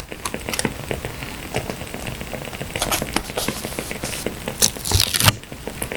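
Burning firewood crackling, a dense run of small pops and snaps, with short bursts of paper rustling about three seconds in and near five seconds.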